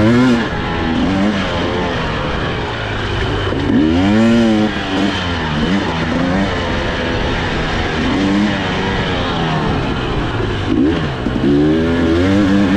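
Husqvarna TE300i two-stroke single-cylinder dirt bike engine under way, its pitch rising and falling over and over with the throttle, over a rough rushing noise.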